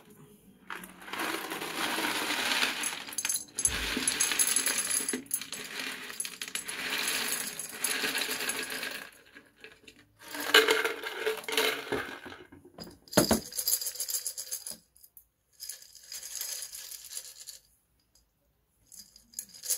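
Expanded clay pebbles (LECA) poured from a plastic container into a glass jar, clattering and rattling against the glass and each other. There is one long pour of about eight seconds, then several shorter pours with pauses between them.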